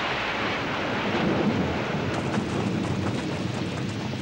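Heavy rainstorm sound effect: a steady rush of downpour and wind.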